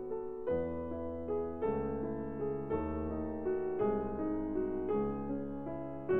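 Background piano music, slow sustained chords changing about once a second.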